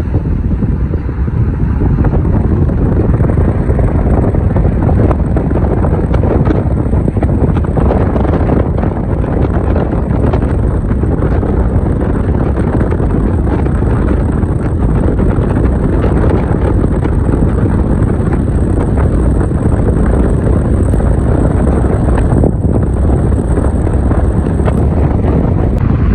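Car driving into and through a road tunnel: steady, loud road and wind noise with a heavy low rumble.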